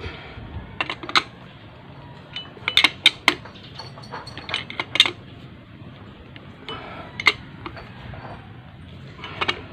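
Scattered sharp metallic clinks and knocks of a wrench and small parts being handled against the aluminium casing of a motorcycle engine under reassembly, a cluster of them about three seconds in and another around five seconds.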